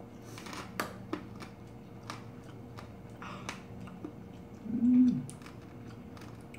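Close-miked chewing of crunchy pork cartilage (odolbbyeo), with scattered crisp crunches. About five seconds in comes a short hum that holds and then drops in pitch, the loudest sound.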